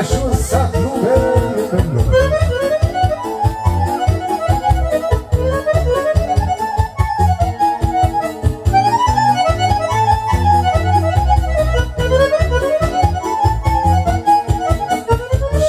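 Romanian folk dance music from a Bihor song medley, in an instrumental stretch with no singing: an accordion plays quick runs that climb and fall over a steady, fast dance beat.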